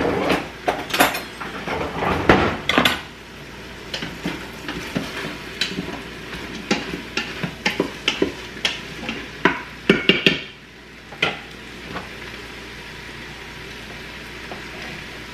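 Kitchen utensils knocking and clattering: a knife tapping on a cutting board as canned biscuit dough is cut into pieces, and a spoon in the Instant Pot's steel pot, in an irregular run of taps that thins out about eleven seconds in. Underneath there is a faint steady sizzle of carrots, onion and celery sautéing.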